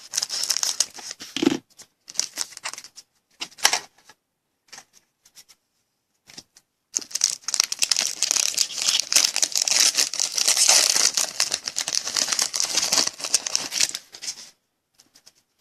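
Trading-card pack wrapper being torn open and crinkled by hand: a few short crackling bursts, a pause, then a long stretch of steady crinkling from about seven seconds in until near the end.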